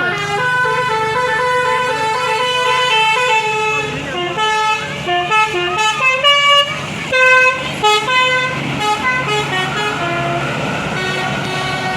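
A bus's multi-tone 'Basuri' telolet horn playing a melody, its notes stepping up and down in pitch, over the low steady sound of the bus's engine.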